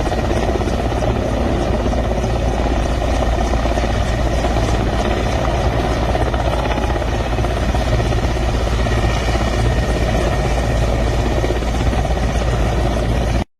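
Steady, loud roar of jet aircraft flying over, with a heavy low rumble; the sound cuts off abruptly near the end.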